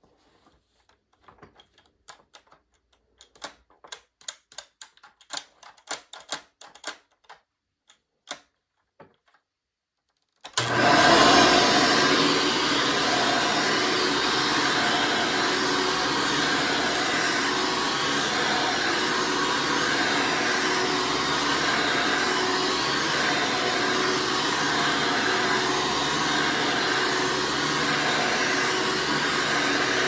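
A run of light clicks and taps, then about ten seconds in a 2008 Hoover Commercial Elite upright vacuum cleaner switches on with a brief surge and runs steadily at full power as it is pushed and pulled over carpet.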